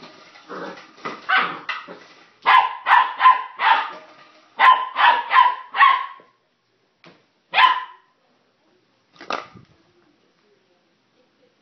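Border collie puppy barking excitedly in quick runs of short, high barks, about four in a row twice over, followed by a few single barks.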